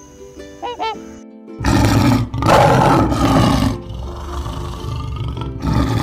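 A Canada goose honks twice, briefly, in the first second. Then, about a second and a half in, a maned male lion starts roaring: a series of loud, rough calls, with a quieter stretch before it starts up again near the end.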